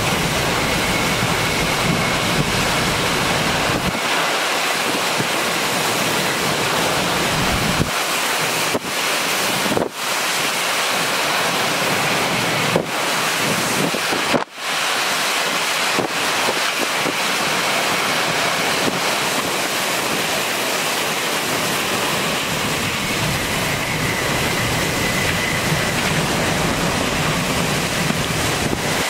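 Hurricane Ian's winds and driving rain: a loud, steady rush of noise with gusts buffeting the microphone, breaking off briefly a few times near the middle.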